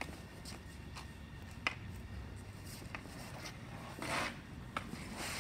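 Street-hockey stick blade tapping a ball on asphalt in a few scattered light clicks while stickhandling, then a brief scrape of stick or pads on the pavement about four seconds in as the boy dekes in on the goalie.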